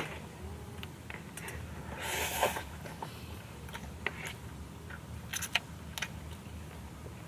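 Quiet eating noises: a few light clicks and taps, with a short breathy rush about two seconds in.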